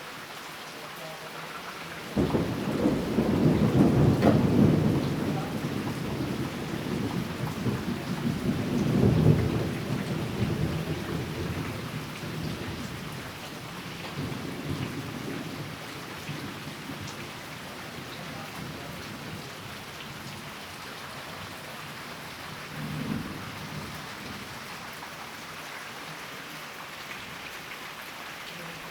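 Steady rainfall with thunder: a sudden crack of thunder a couple of seconds in rolls into a long rumble that swells again and fades away over about a dozen seconds. A shorter, fainter rumble follows near the end.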